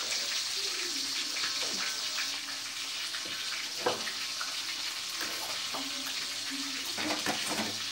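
Steady hiss of cooking oil heating in a wok over a lit gas burner, not yet at full frying temperature, with a few light clicks and knocks of utensils, the sharpest about four seconds in.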